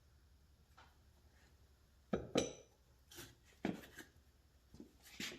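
Steel parts of a hydraulic cylinder knocking and clanking against metal. There are about half a dozen sharp, irregular metallic knocks, starting about two seconds in.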